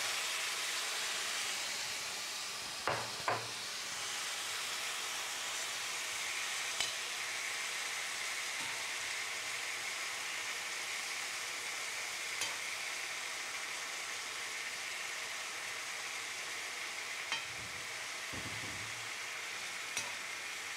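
Seasoned chicken wings sizzling steadily as they brown in a hot pot with no liquid added. A metal spoon stirs them, knocking against the pot a few times: twice close together about three seconds in, then once every few seconds.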